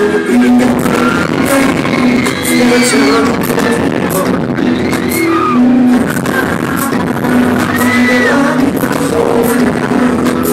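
A live pop ballad sung by a boy band and played loud through a concert PA, recorded from the audience in a large hall. High, rising-and-falling cries from the crowd rise above the music now and then.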